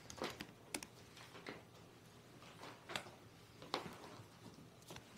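Bible pages being leafed through: faint, scattered light ticks and soft rustles, several brief ones spread across a few seconds.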